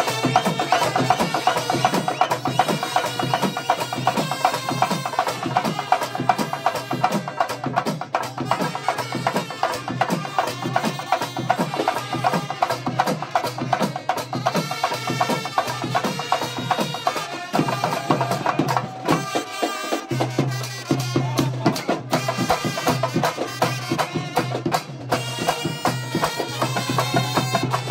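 Brass band music: trumpets and trombones play a melody together over a driving, steady beat of bass drum, cymbals and two-headed barrel drums.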